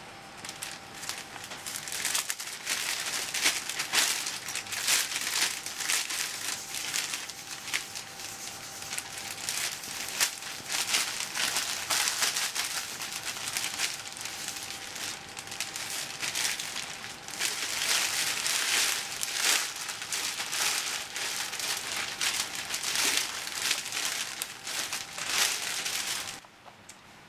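Clear plastic bags crinkling and rustling continuously as they are handled and opened, one bag being put inside another to double-bag, with many sharp crackles; the crinkling dies away near the end. A faint steady tone hums underneath.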